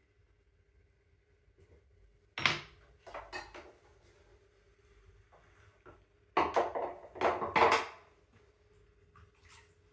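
Potter working at an electric pottery wheel, which hums faintly and steadily throughout. Over the hum come short splashing and clattering handling sounds: a sudden one about two and a half seconds in, and the loudest cluster between about six and eight seconds in, as a hand goes into the wheel's water bowl.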